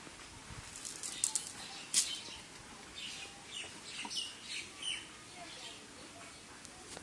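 Cast net being gathered up and lifted off the grass: a run of short rustling swishes between about one and five seconds in, the sharpest two near the start.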